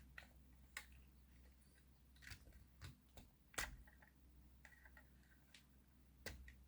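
Near silence broken by a few faint, scattered clicks and taps of small model-locomotive bogie parts being handled, the loudest about three and a half seconds in.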